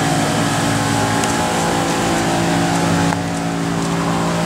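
An engine running steadily nearby: a low, even drone with a slight dip in level about three seconds in.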